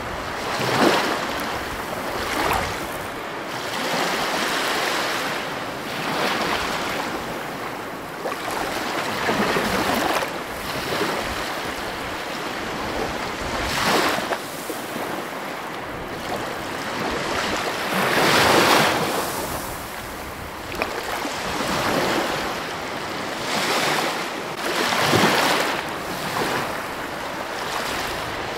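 Ocean surf breaking and washing over rocks: a continuous rush of churning water that swells and falls back every few seconds, with one bigger surge about two-thirds of the way in.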